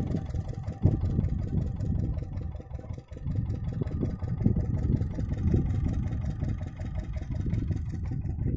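Small stationary engine of a well-drilling rig running steadily, with a low, even chugging.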